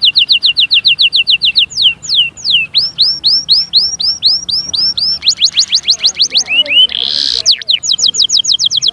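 A small songbird singing close by in long trills. Each trill is a quick run of repeated whistled notes, about seven a second, and the note shape changes every second or two: falling slurs, then rising ones, then a faster run. About seven seconds in, a short harsh rasp breaks in before the trilling resumes.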